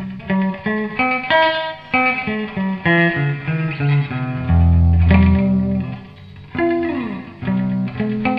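Electric guitar played through a tube-powered Voice tape echo into a Voice tube amplifier: a run of single picked notes with echo repeats, a strong low note about halfway through, and a note sliding down in pitch about two-thirds of the way through.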